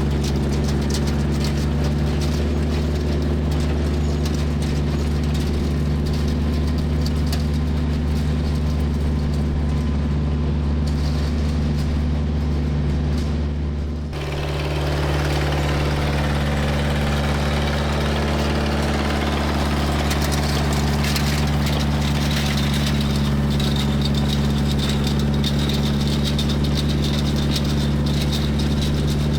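Tractor engine running steadily while driving a John Deere 346 square hay baler in the field. The sound changes abruptly about halfway through.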